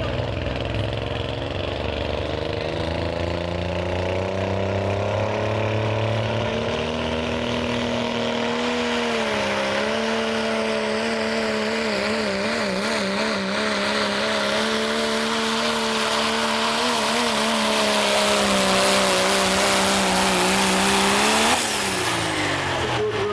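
Turbocharged diesel engine of a Dodge Ram pickup at full throttle, pulling a weight sled down the track. The pitch climbs over the first several seconds, wavers and holds through the middle of the pull, then falls away sharply near the end as the throttle is lifted.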